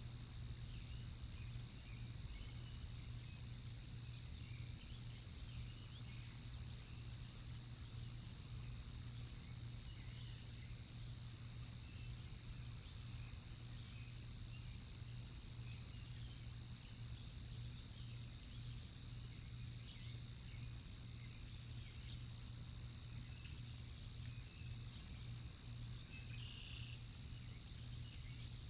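Steady outdoor camera-microphone background: a constant low hum and steady high-pitched tones, with a few faint, brief bird chirps scattered through it.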